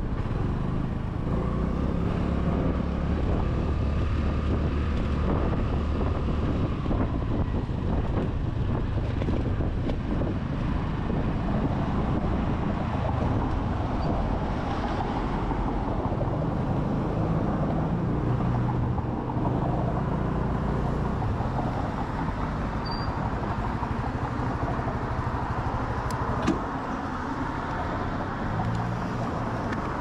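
Honda Navi scooter's small single-cylinder engine running under way in city traffic, its note rising and falling with speed over steady road noise. There is a single sharp tick near the end.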